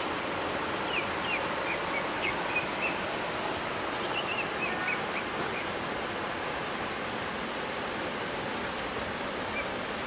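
Tropical forest ambience by a shallow stream: a steady wash of noise, with a bird's short high chirps, several in a row, in the first half.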